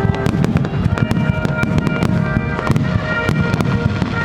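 Fireworks going off in a dense barrage, many bangs and crackles in quick succession, with music playing underneath.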